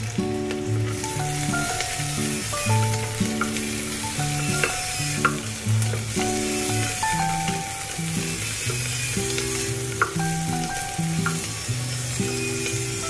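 Background music with a stepping melody, over onions and spices sizzling in hot oil in an aluminium pressure cooker as a wooden spatula stirs them. A few sharp taps of the spatula on the pot stand out, twice around the middle and once near the end.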